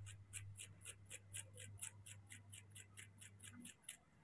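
A small metal spoon scraping the flesh of a peeled pear in quick, even strokes, about six a second, which stop shortly before the end.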